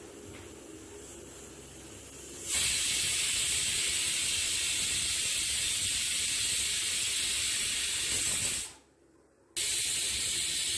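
Pressure cooker on a gas stove venting steam: a loud, steady hiss that starts suddenly a couple of seconds in, cuts out for under a second near the end and then resumes.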